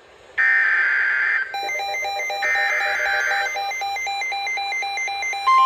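Emergency Alert System SAME digital data bursts from NOAA Weather Radio: two harsh screeching bursts about a second long, a second apart. A rapid beeping alarm of alternating tones comes in over them about a second and a half in. The steady 1050 Hz weather-radio warning tone begins just before the end.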